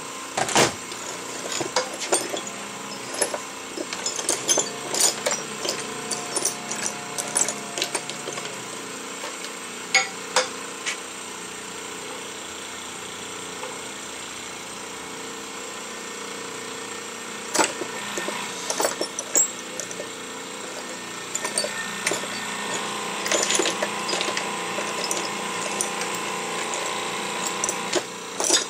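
Scattered sharp metal clanks and knocks as a bent steel shaft is set up and worked in a hydraulic shop press to straighten it, with a quieter stretch in the middle. A steady machine hum runs underneath.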